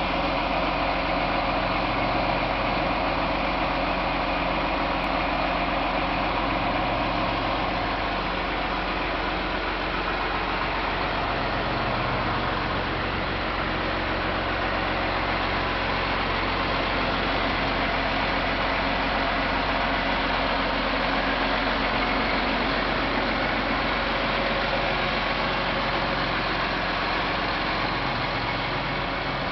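Case IH Magnum 315 tractor's diesel engine running steadily.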